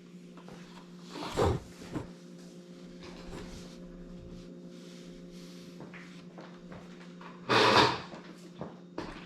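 Two short clattering bumps of a bicycle being handled and set onto an indoor trainer, one about a second in and a louder, longer one near the end, over a steady low hum.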